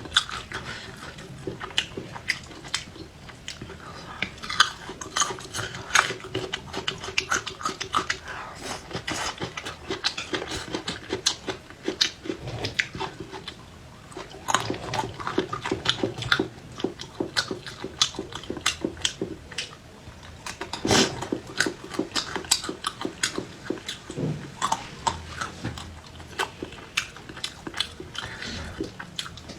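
Close-miked chewing and crunching from eating chili peppers and garlic: a steady run of short, crisp bites and mouth sounds.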